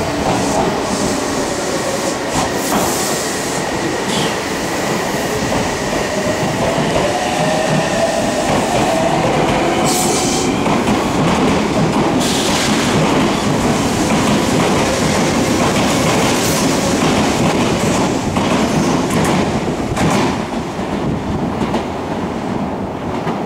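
Odakyu electric commuter train running along the platform: a motor whine gliding in pitch over steady rolling noise, with wheels clicking over rail joints and points.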